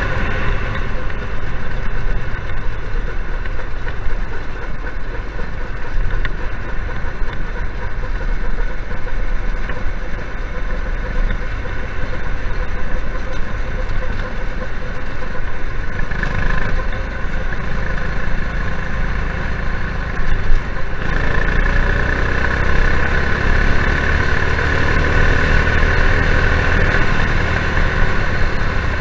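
Go-kart's former dirt-track racing engine running under way, heard from on board the kart. The engine note changes about halfway through, and about three-quarters of the way through the revs climb and it runs harder and louder.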